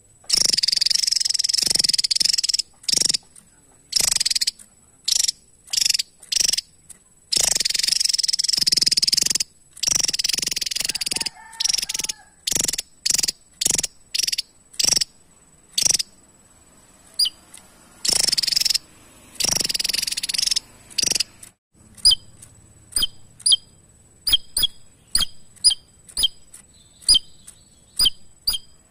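Javan tesia singing: high, buzzy phrases of a second or two broken by short notes, changing about two-thirds of the way in to a quick run of short, sharp high chips.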